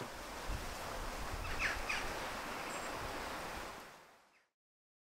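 Outdoor ambience: a steady rushing noise with some low rumble, with a few short bird chirps about one and a half to two seconds in, fading out near the end.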